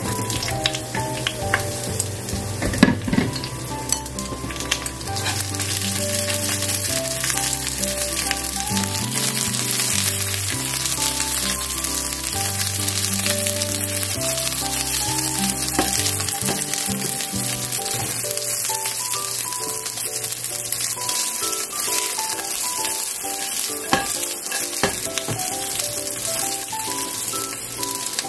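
Sliced green peppers sizzling as they stir-fry in hot oil in a frying pan, with a few sharp clicks; a backing tune plays over it throughout.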